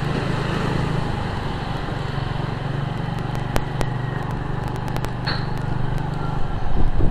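Motorcycle engine running steadily while riding in city traffic, with road noise; the engine note changes near the end.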